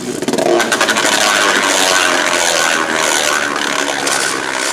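Two Beyblade Burst tops spinning in a plastic stadium: a steady whirring scrape of their tips on the stadium floor, with many fast clicks as they knock together.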